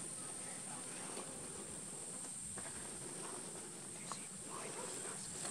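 A steady, high-pitched drone of insects in dry bush, with a few faint ticks and rustles.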